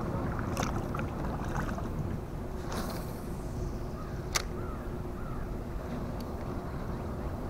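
Kayak paddled slowly: soft paddle splashes every couple of seconds over a steady low rumble, with one sharp knock about four seconds in.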